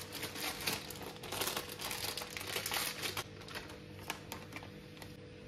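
Plastic packet of crispy flour mix crinkling as it is handled and tipped to pour the flour onto a plate. The crackling is dense for the first three seconds, then thins to scattered ticks.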